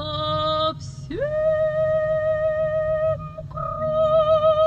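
Operatic soprano voice singing slow, long held notes with vibrato over a low, sustained orchestral accompaniment. A hissing consonant about a second in breaks the phrase, and the last note slides down at the end.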